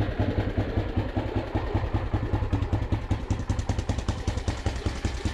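2005 Polaris Predator 500's single-cylinder four-stroke engine idling steadily with an even, rapid exhaust pulse, running cold just after being started.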